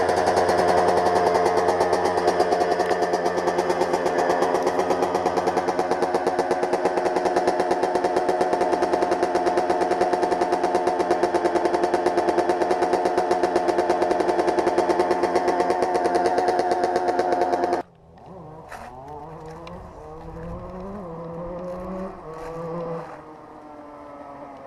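Suzuki RM125 single-cylinder two-stroke motocross engine running at a steady idle, loud and close, with a fast even firing pulse. About 18 seconds in, the sound cuts suddenly to a quieter stretch where the engine's pitch rises and falls as it is revved, with a few clicks.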